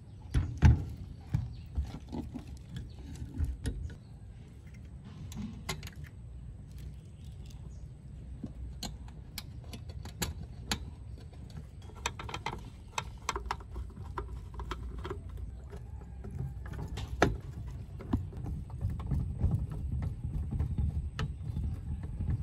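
Hand screwdriver driving screws and a power transformer being fitted into a steel amplifier chassis: scattered light clicks and knocks of metal on metal, the sharpest about half a second in, over a steady low rumble.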